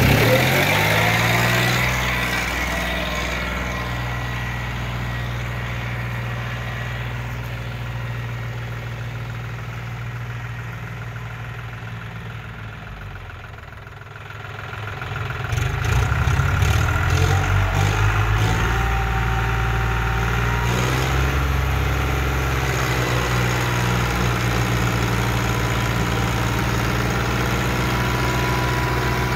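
John Deere tractor's diesel engine running at full power, loud at first, then slowly sagging and fading. About halfway through it picks up sharply again and holds a steady, strong note.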